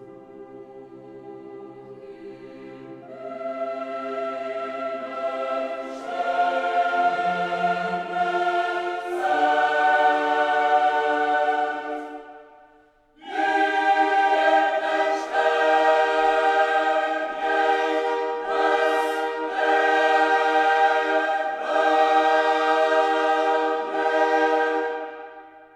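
Background music of slow, held chords in a choral style, fading out about halfway, starting again a second later, and fading out again at the end.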